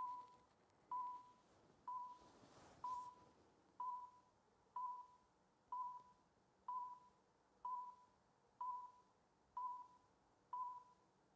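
Faint electronic beep at one middle pitch, repeating evenly about once a second, each beep short with a brief fading ring.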